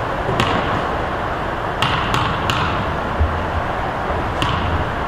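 Basketball play in a gym: steady background noise with scattered sharp smacks, three of them in quick succession about two seconds in, and low thuds of the basketball bouncing a little after three seconds.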